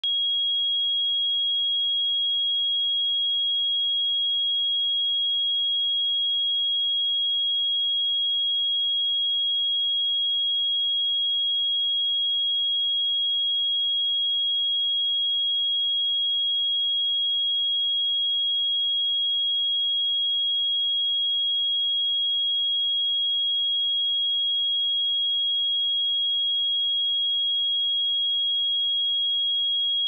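A pure 3296 Hz sine-wave test tone, held at one steady pitch and level.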